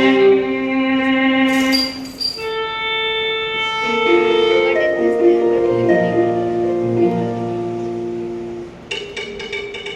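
Instrumental music with long held notes that change every second or so. It has a short hissing swish near two seconds in and a quick run of sharp clicks near the end.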